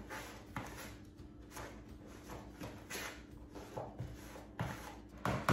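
A utensil scraping and tapping in a plastic mixing bowl, cutting butter into a crumbly brown sugar and flour streusel mix: soft irregular scrapes with light knocks, louder near the end.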